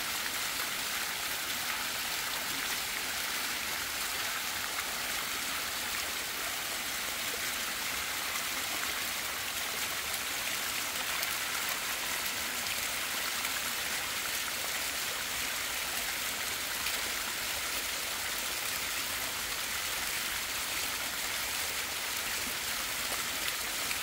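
Small waterfall rushing and splashing steadily over rock.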